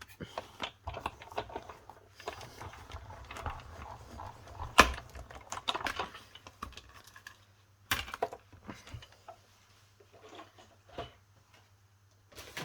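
Stampin' Cut & Emboss hand-cranked die-cutting machine being wound, running the plates and die through the rollers with a dense run of clicking and grinding for several seconds. There is a sharp clack about five seconds in and another about eight seconds in, then a few quieter knocks.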